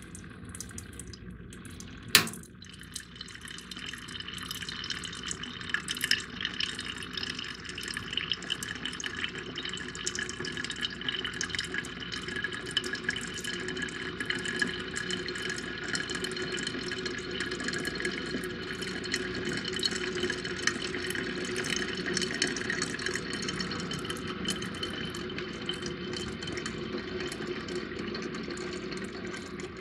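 Freshly brewed coffee streaming from a BUNN brewer's funnel into a glass decanter, a steady splashing trickle that builds up about three seconds in. A single sharp click comes about two seconds in.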